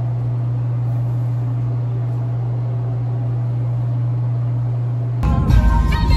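Steady low hum at one even pitch, with no speech. About five seconds in it cuts off and music with singing starts.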